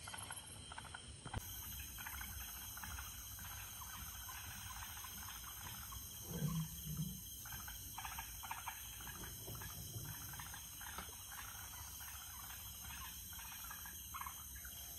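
Steady high chirring of a night insect chorus, crickets, with small water splashes and drips around the boat. Two short low sounds come about six and a half seconds in.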